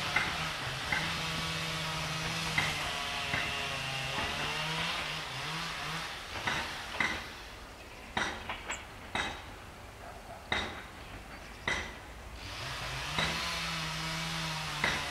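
TFG diesel railcar running with a steady low engine hum that fades in the middle and returns near the end. Irregular sharp metallic clanks of its wheels over the rail joints and points.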